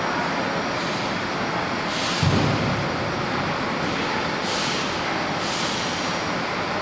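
Steady din of heavy military trucks' diesel engines while they manoeuvre, with four short air-brake hisses and a low thud a little over two seconds in.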